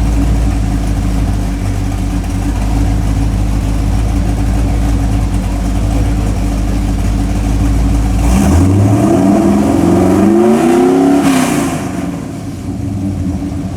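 A Fox Body Mustang V8 idles steadily on a chassis dyno. About eight seconds in, it goes to full throttle for a dyno pull, the engine note climbing fast in pitch for about three seconds. It then lets off and drops back toward idle.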